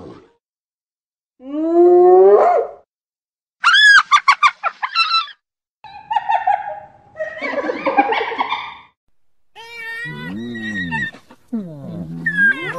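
Spotted hyenas calling in a series: a rising call about two seconds in, then a quick run of high-pitched giggling notes, then squealing calls and lower, wavering moans near the end.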